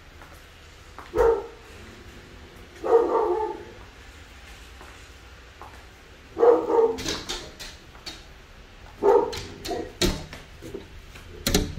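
A dog barking, at first in single barks a couple of seconds apart, then in quicker runs of barks in the second half.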